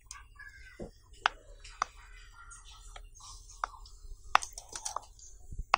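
Bubbles of a silicone pop-it fidget toy being pressed in by a finger, giving a series of sharp pops at an uneven pace, with several coming close together near the end.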